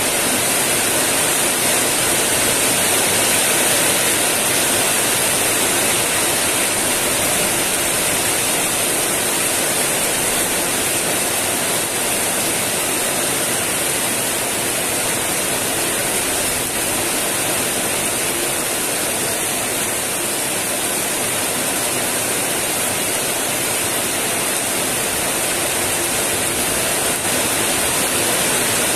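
Heavy rain pouring steadily, a dense even hiss of drops on the ground and puddles.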